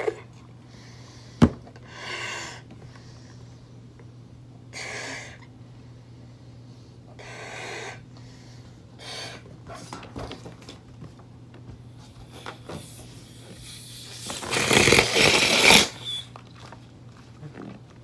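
A latex punch balloon being blown up by mouth: several breathy puffs of air a few seconds apart, with a sharp click about a second and a half in. Near the end comes a loud rush of air lasting about a second and a half as the inflated balloon is let down.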